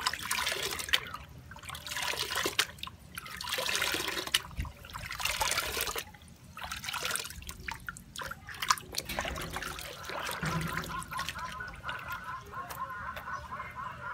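Hands splashing and scooping water in a plastic tub, rinsing tie-dyed cloth in its food-colouring dye bath. The water sloshes and pours in irregular bursts for about nine seconds, then settles to a quieter trickle.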